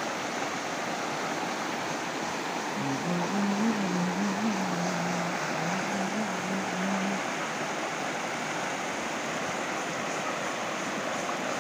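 Shallow mountain river rushing over rocks in steady rapids. From about three to seven seconds in, a faint low wavering hum sounds over the water.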